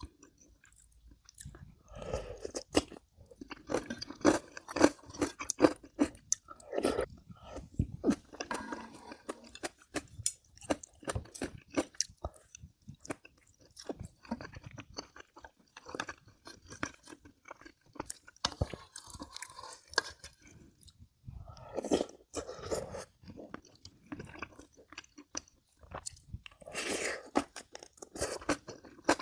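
A person eating close to the microphone, chewing kimchi and nurungji with many quick crisp crunches and a few short pauses between mouthfuls.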